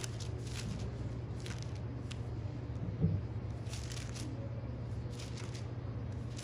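Short, soft rustles of things being handled, coming every second or so, over a steady low hum, with one dull thump about three seconds in.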